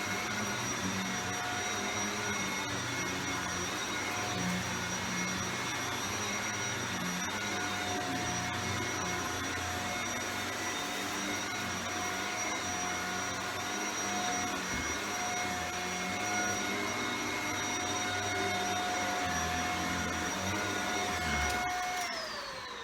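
Shark Powered Lift-Away Speed upright vacuum cleaner running with a steady whine. Near the end it is switched off, and the whine falls in pitch as the motor winds down.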